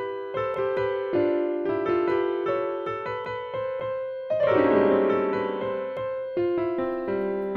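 Background piano music: a melody of held notes changing every half second or so, with a fuller, brighter chord about four and a half seconds in.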